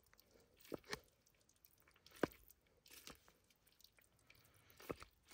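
Faint, scattered soft clicks and squishes of a bread knife stirring wet instant noodles in a plastic cup, the sharpest click about two seconds in.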